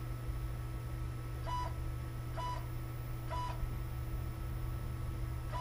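Z-axis stepper motor of a Kudo3D Titan 1 resin printer lowering the build platform toward zero in short jogs: four brief whines about a second apart, each rising and falling in pitch, over a steady low hum.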